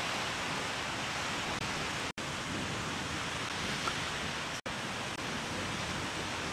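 Steady rush of sea surf breaking on shoreline rocks. The sound cuts out for an instant twice, about two seconds in and again near four and a half seconds.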